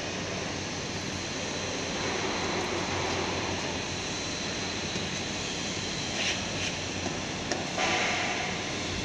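Steady rushing background noise of a switchgear room, with a low hum and a faint high whine. From about six seconds in come a few small knocks and a brief rattle as a cable is handled at the cubicle.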